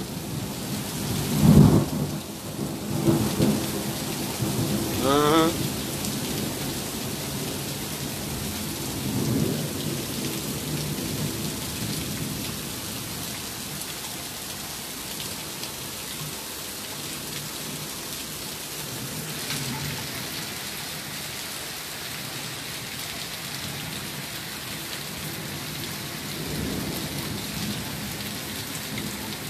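Heavy rain pouring down steadily in a thunderstorm, with deep rolls of thunder rumbling several times in the first ten seconds, the strongest about a second and a half in.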